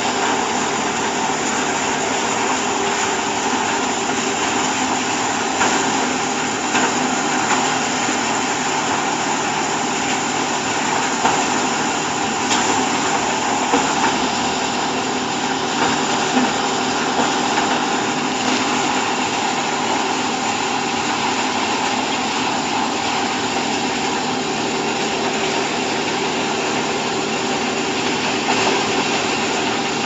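Hydraulic chopped-hay baling press running with a steady mechanical drone from its electric motor and hydraulic pump, with a few light knocks.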